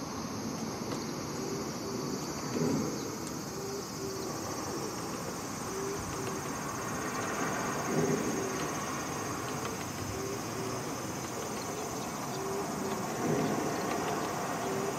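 Insects buzzing in a steady, high, even drone over a low background hum, with three short louder bumps about five seconds apart.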